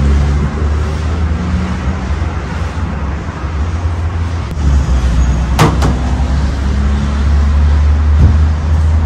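Steady low rumble of road traffic from a busy street, with a sharp knock about five and a half seconds in.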